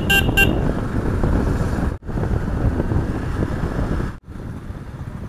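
Wind buffeting the microphone while riding a motorcycle, a dense rushing noise with the bike's running buried underneath. Three short beeps come right at the start, and the sound breaks off for an instant twice, a little quieter after the second break.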